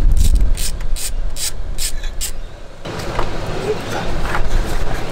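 Socket ratchet clicking in short strokes, about three to four a second for the first two seconds, then fainter scraping and clicks, as the bolts holding the motorcycle's exhaust-valve servo are undone. A low wind rumble on the microphone runs underneath.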